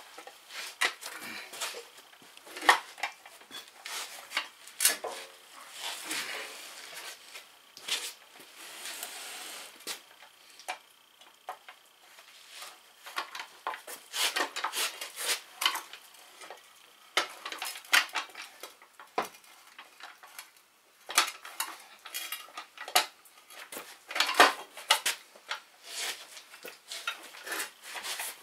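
Metal parts and tools clinking, knocking and scraping against a garden tractor's rear axle and differential housing as it is worked on by hand, in irregular sharp clanks with a longer stretch of scraping about a third of the way in.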